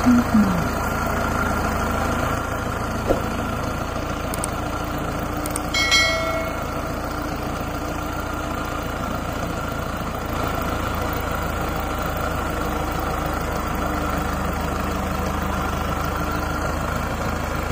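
Tractor diesel engine idling steadily. About six seconds in, a short ringing sound is heard over it.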